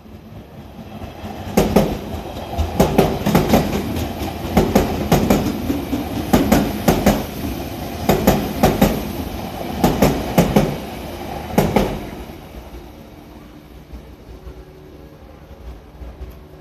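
Odakyu Odawara Line electric train passing over the level crossing: wheels clatter over the rail joints in quick pairs of clicks, a clickety-clack over a running rumble that lasts about ten seconds and then fades away.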